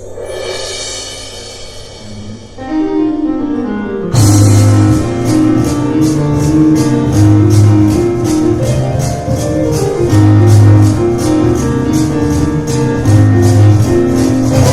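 Live piano and cajon instrumental. A piano phrase plays alone, then about four seconds in the percussion enters with fast, even strokes and deep bass thumps under a driving piano line.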